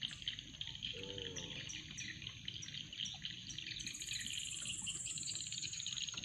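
Outdoor wildlife sounds: a steady chorus of insects, with a bird giving a quick run of short, high, falling chirps, then a long high whine that falls slowly in pitch over the last couple of seconds.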